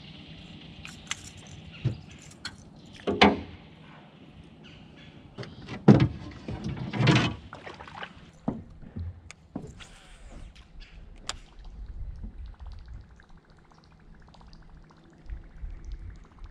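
Handling a freshly caught bass at the side of a jon boat: a few knocks and thumps on the boat, and splashes as the fish goes back into the water. Near the end, a faint, fast, even ticking.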